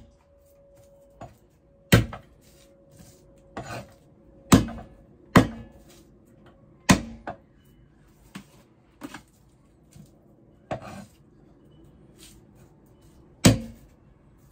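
Cleaver chopping garlic on a wooden cutting board: sharp knocks at uneven intervals, about one to two seconds apart, some hard and some light.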